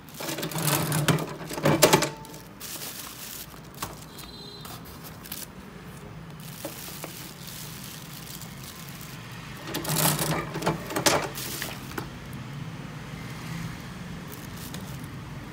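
Desktop hole punch machine punching a calendar sheet twice, each stroke a loud mechanical run of about two seconds: once at the start and again about ten seconds in. A low steady hum continues underneath.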